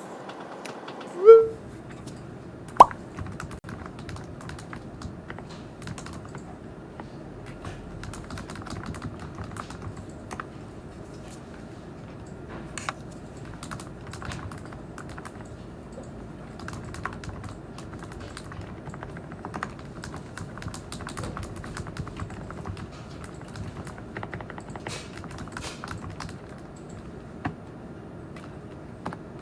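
Typing on a computer keyboard: a steady run of clicking keystrokes. About a second in, a brief loud tone that bends slightly upward, then a single sharp click.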